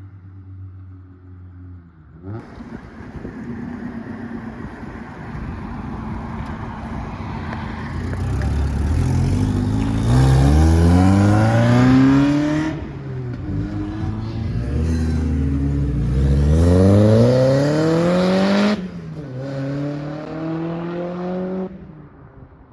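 A car engine idling, then pulling away and accelerating hard: the engine note climbs twice, each climb cut off by a gear change, then settles to a steadier note and fades.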